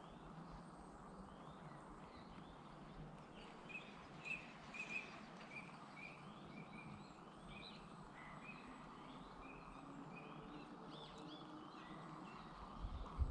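Small birds chirping and singing, with short repeated notes, over a faint steady outdoor hiss. A low rumble on the microphone rises near the end.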